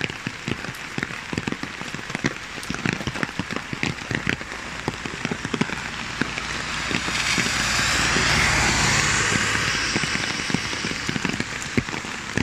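Steady rain, with many sharp drops pattering close by on an umbrella. In the second half a broad hiss swells and then fades.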